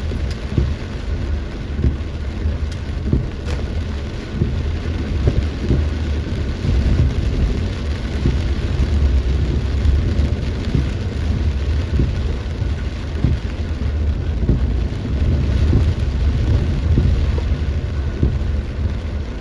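Heavy rain pouring in a storm, with a steady deep rumble underneath and many irregular low knocks.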